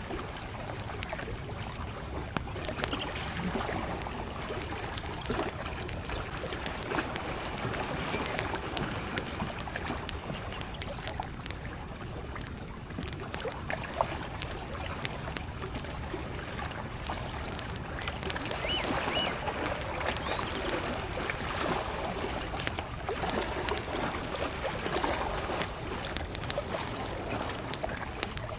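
Campfire crackling with frequent small pops over gentle lake waves lapping, the water sound swelling and easing. A few short, faint bird calls come through now and then.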